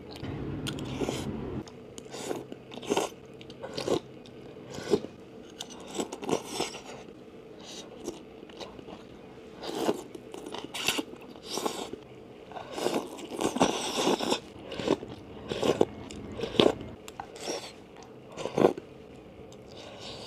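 Close-miked mukbang eating of a thick-noodle soup: slurping noodles and chewing, with crunchy bites, in irregular bursts. The sounds are busier in the first second and a half and again in the middle.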